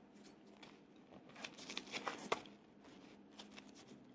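Faint handling sounds of a hosomaki sushi roll being rolled and pressed in a bamboo rolling mat: soft rustles and light clicks that gather in the middle, with one sharper click.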